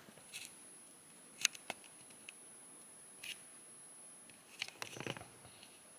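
Faint, scattered clicks and light rustling from a small plastic action figure and its accessory parts being handled, with a short cluster of clicks near the end.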